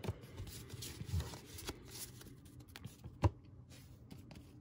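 Faint handling of trading cards: soft rustling and small taps as cards are tidied and set down, with one sharper knock a little over three seconds in.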